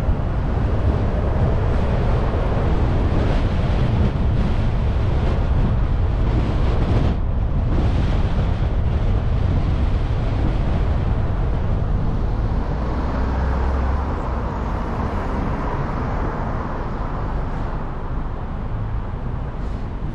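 Car on the move: a steady low rumble of road and engine noise with wind on the microphone. It grows a little quieter over the last few seconds as the car draws up to a stop.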